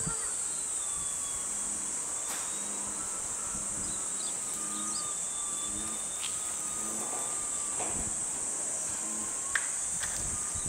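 Steady, high-pitched insect chorus, with the faint whine of an electric RC aerobatic plane's brushless motor and propeller overhead, slowly wavering in pitch as it flies.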